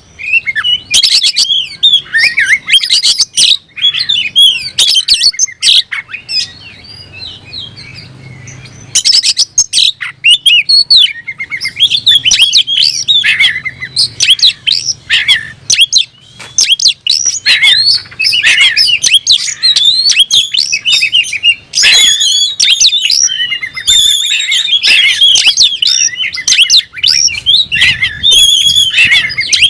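Oriental magpie-robin (kacer) singing a rapid, varied string of whistles and chirps in full, nonstop song, the challenging song of a male looking for a rival. The song drops to a brief lull about six seconds in, then resumes.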